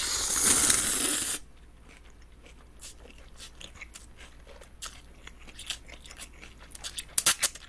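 A loud slurp of cold naengmyeon noodles lasting about a second and a half, then quiet close-up chewing with small wet clicks and smacks, and a few sharper smacks about seven seconds in.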